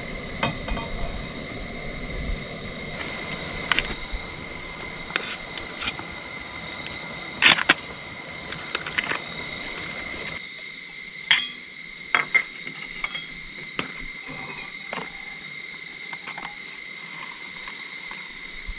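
Crickets trilling steadily in the dark, with sharp clinks of stainless steel camp cups and a pot being handled and set down on a wooden deck, the loudest about seven and eleven seconds in.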